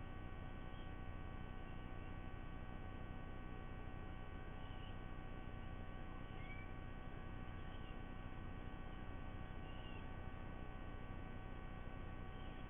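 Steady electrical hum from the nest camera's microphone feed, with about six faint short high bird chirps scattered through it.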